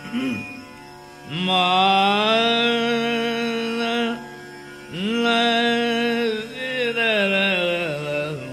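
Male dhrupad vocal alap in raga Malkauns, unaccompanied by drum: two long phrases of held notes that slide slowly between pitches, separated by short breaths. A steady drone carries on quietly under and between them.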